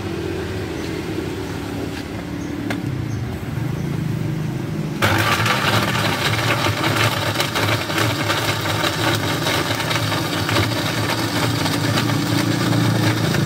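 An electric countertop blender switches on suddenly about five seconds in and runs steadily, blending a drink. Before it starts there is a steady low engine hum.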